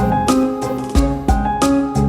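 Background music: an upbeat instrumental arrangement with a steady drum beat and held melody notes.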